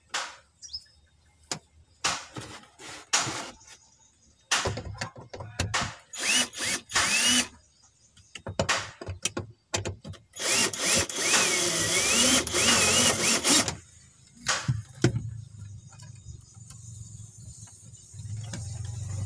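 Cordless drill/driver driving screws: a string of short bursts, then a longer run of about three seconds with the motor whine rising and falling as the trigger is worked.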